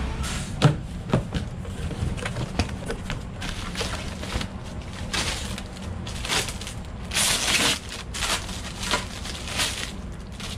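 Clear plastic bag crinkling and rustling in irregular handfuls as a part is unwrapped, loudest and densest near the middle, with a couple of sharp knocks about a second in. A steady low rumble of shop background runs underneath.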